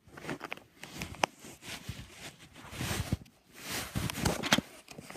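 Irregular clicks and short rustles of small objects being handled.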